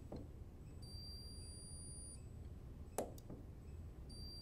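Hand-held spot welder firing a spot weld on a thin metal collar shim: a sharp snap about three seconds in. A steady high electronic beep sounds about a second in and lasts about a second and a half.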